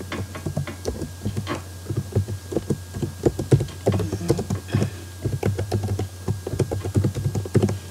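Computer keyboard typing: quick, irregular key clicks, with a steady low hum underneath.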